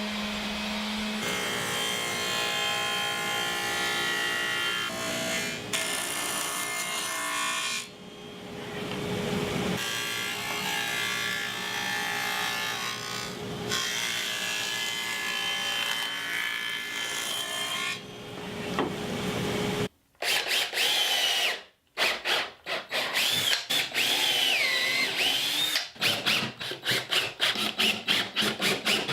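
Power tools working plywood. A motor runs steadily for most of the stretch, with abrupt changes every few seconds; in the last third it gives way to a fast series of short scraping strokes.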